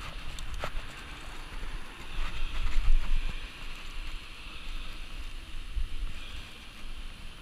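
Wind rumbling unevenly on the microphone over a steady hiss, with a couple of sharp ticks near the start.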